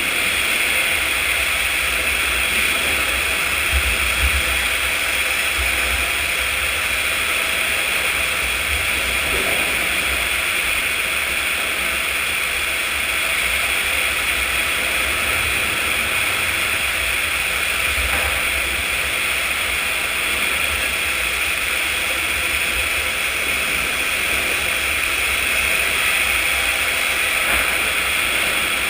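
Sawmill machinery running steadily: a constant, even machine noise with a low, uneven rumble beneath it.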